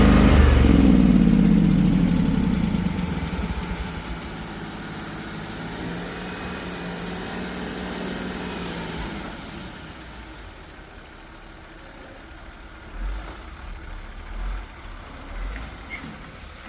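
A vehicle engine running loud and close, its pitch dropping about a second in, then fading steadily over the next several seconds as it moves away. A few low thumps follow near the end.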